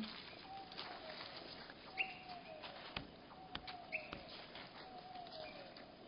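Bird calls slowed to one-third speed, so they sound low and drawn out: a falling call repeats about every second and a half, with a couple of short higher notes and scattered sharp clicks.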